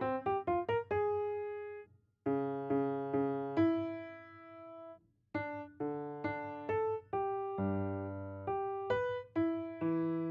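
Solo piano playing atonal twelve-tone serial music: scattered single notes and small chords, opening with a quick flurry of short notes, with two brief silences about two and five seconds in.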